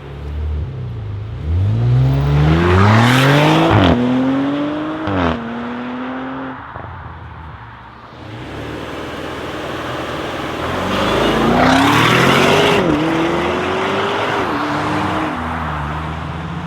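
Audi RS6 C8's tuned twin-turbo V8 with Akrapovic exhaust accelerating hard twice. Each pull climbs in pitch, drops sharply at a quick upshift, climbs again, then falls back to a lower engine note.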